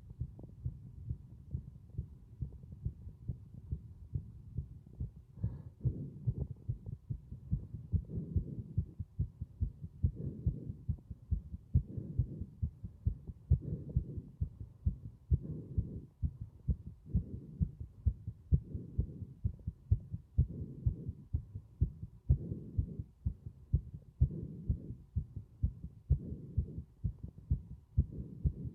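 Heartbeat recorded close up, a steady run of low thumps, with breathing sounds mixed in that swell and fade about every two seconds from a few seconds in.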